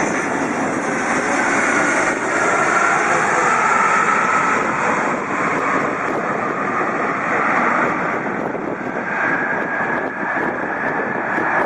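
Airliner jet engines running, a steady rush with a faint high whine that shifts slightly in pitch.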